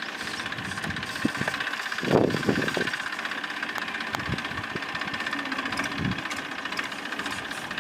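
Farm tractor's diesel engine running steadily, with louder low surges about two seconds in and again around six seconds.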